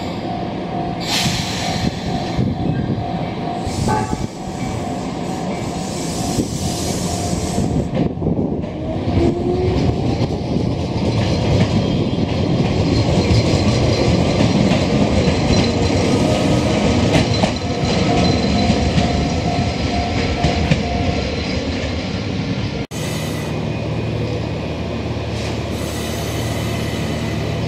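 Chichibu Railway stainless-steel electric train pulling away along the platform, its motors rising in pitch and its running noise growing louder as it gathers speed. After an abrupt break about 23 seconds in, a standing train hums steadily.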